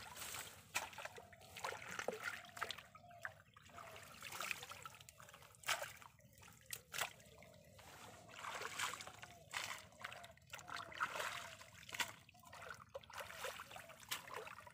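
Shallow muddy water splashing and trickling as a bamboo-framed push net and hands are worked through it, with frequent short, irregular splashes.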